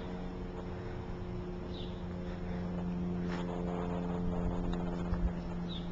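Chevrolet van's engine idling steadily at the curb: a low, even hum.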